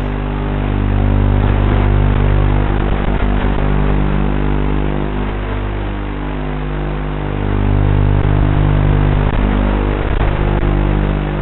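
Micro FPV quadcopter's motors and propellers running, picked up by its onboard camera as a steady hum that swells louder twice, at about a second in and again past the middle, as the throttle is raised.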